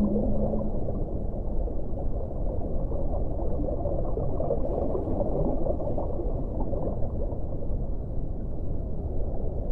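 Underwater ocean ambience: a steady, muffled low water rush with a bubbling, gurgling texture. A held deep tone dies away just under a second in.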